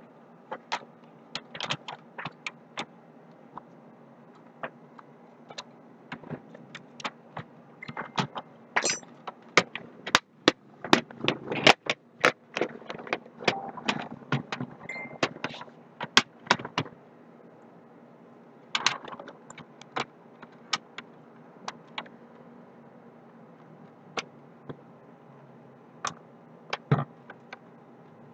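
Plastic laptop case parts being handled during reassembly: irregular clicks, taps and knocks as the bottom cover and palmrest are pressed and set down, busiest around the middle, over a faint steady hum.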